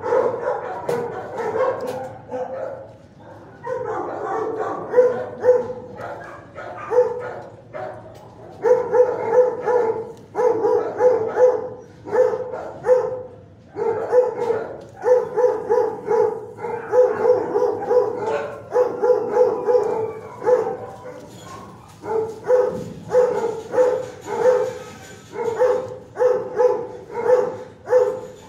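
Dogs barking over and over in a shelter kennel, in runs of sharp barks with short pauses between them.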